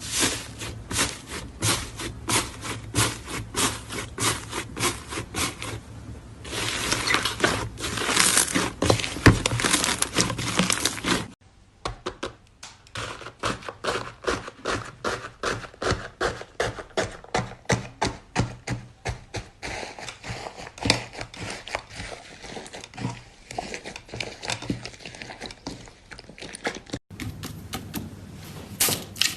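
Slime being squeezed and poked by hand, giving a fast run of sticky clicks and crackles, with a denser crackling stretch about a quarter of the way in. The sound breaks off abruptly twice.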